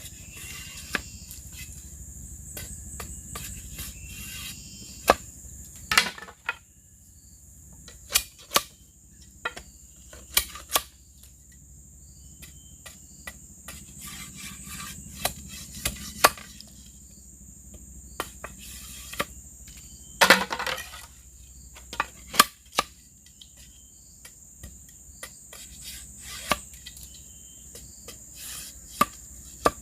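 Irregular sharp knocks and taps of hand tools working bamboo, a few louder blows among many softer ones. A steady high chirring of crickets runs underneath.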